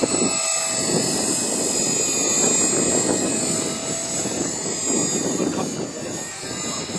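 Electric 450-class RC helicopter in 3D flight: a steady high-pitched motor whine over the whooshing chop of the rotor blades. It is a little louder in the first few seconds, while the helicopter is low and close.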